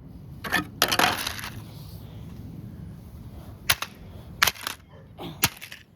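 A plastic remote-control car being smashed: about six sharp, hard knocks and cracks, with a longer crash about a second in.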